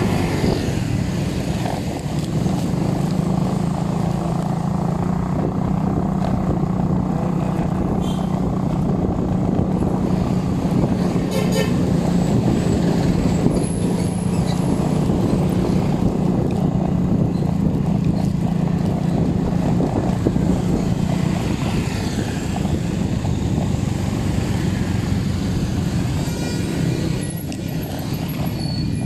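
A motor vehicle's engine running steadily with a constant low hum, under heavy road and wind rumble, heard on the move.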